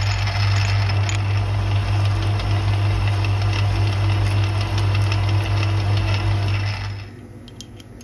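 Lathe running under power, its change gears and lead screw driving the carriage while a single-point tool takes the final pass on a 26 TPI thread. A steady low hum with a fast rattle of small clicks runs, then stops about seven seconds in; a few light clicks follow.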